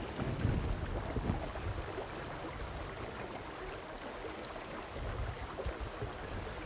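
Creek water running over rocks as a steady rushing, with uneven low rumbles of wind on the microphone.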